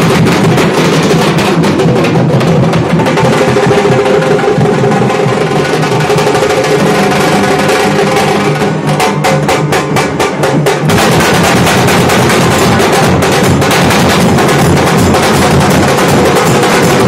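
Nashik dhol band: several large double-headed dhol drums beaten with sticks in a fast, driving rhythm over a held melody from a bulbul tarang (benjo). About nine seconds in, the drumming thins to a quick run of sharp, evenly spaced strokes, then the full band comes back in about two seconds later.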